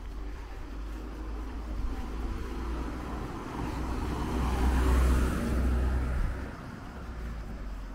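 A car driving past, its engine and tyre noise swelling to a peak about five seconds in and then fading away, over a low rumble of wind on the microphone.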